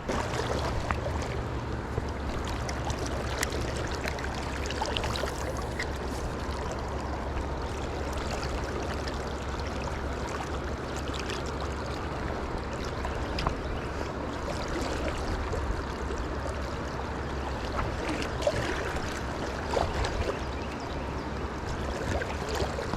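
River water running steadily, with a low rumble underneath and a few faint ticks.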